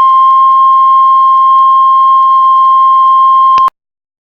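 Heart monitor flatline alarm: one long, steady, high-pitched beep, the sign of a stopped heart. It cuts off abruptly near the end.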